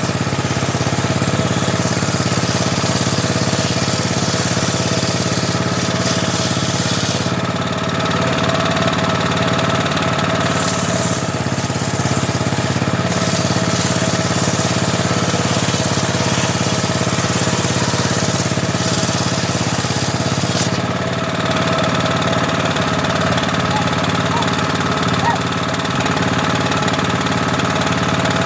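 Homemade circular table saw running while sawing teak. A steady machine drone sits under a high cutting hiss, and the hiss comes and goes as the wood is fed through the blade.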